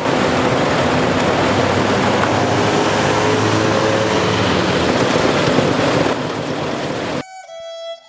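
Street traffic dominated by tuk-tuk (auto-rickshaw) engines running as the three-wheeled taxis drive past, a steady engine noise over road hiss. It cuts off suddenly about seven seconds in, replaced by violin music.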